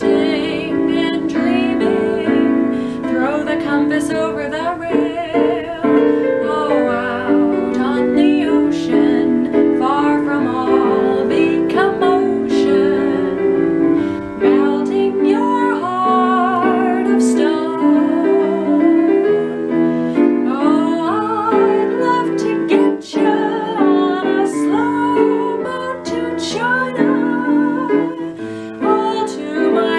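A young woman singing a swing-era jazz standard with vibrato over piano accompaniment.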